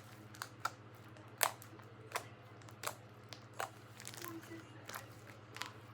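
Homemade slime being poked and squeezed by hand, making sharp, irregular clicking and popping sounds, about ten in a few seconds, over a faint steady hum.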